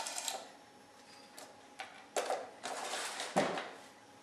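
A few light knocks and short scrapes of upturned plastic cups on a board as a dog noses at them, the loudest knock about three and a half seconds in.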